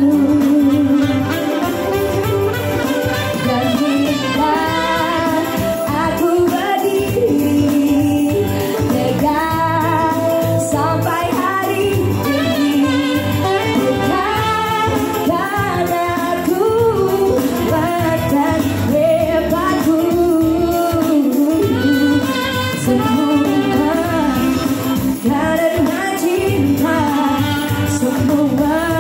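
A woman singing into a microphone over live electronic keyboard accompaniment, both amplified through a PA speaker.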